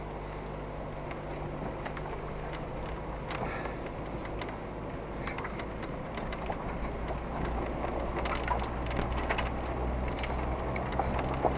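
An off-road SUV's engine, heard from inside the cabin, idles and then pulls away slowly over a rough dirt track. The engine hum grows louder about halfway through, with scattered knocks and rattles from the stones and bumps under the tyres.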